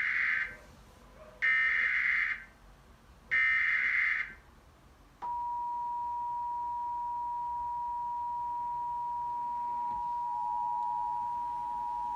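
Emergency Alert System activation: three data bursts of the digital SAME header, about a second each, then about five seconds in the steady two-tone EAS attention signal (853 and 960 Hz) starts and holds.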